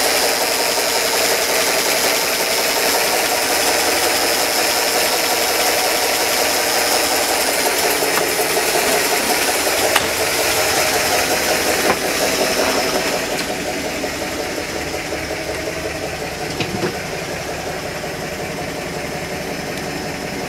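PAZ-32053 bus's carburettored ZMZ V8 petrol engine idling steadily, heard through the open engine cover inside the cab. It gets a little quieter from about two-thirds of the way in, and a couple of light clicks sound in the middle.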